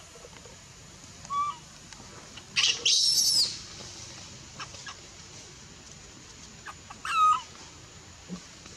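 Baby macaque crying in short, pitched cries: a brief one early, a loud, shrill cry about three seconds in, and another loud cry that falls off near the end.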